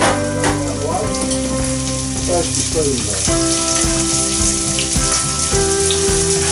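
Chopped celery and onion sizzling steadily in hot olive oil in a saucepan, with a few held tones underneath that change pitch now and then.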